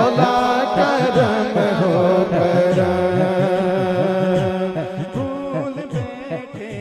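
A man singing a devotional Urdu hamd in a melismatic, chant-like style over a steady drone.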